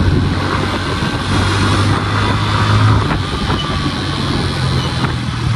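Suzuki 150 motorcycle's single-cylinder four-stroke engine running at low speed in dense city traffic, a steady low hum under constant road and traffic noise.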